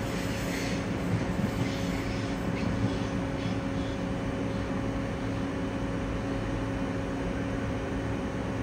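Electric regional train moving off along the line: a steady low hum with some fading rail noise in the first few seconds.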